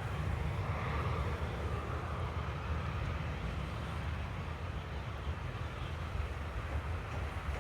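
Boeing 737-800's CFM56-7B jet engines running at a distance, a steady low rumble with a faint hiss above it.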